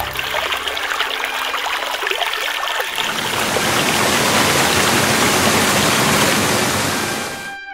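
Rushing-water sound effect, like a stream or torrent, swelling louder about three seconds in and cutting off suddenly near the end.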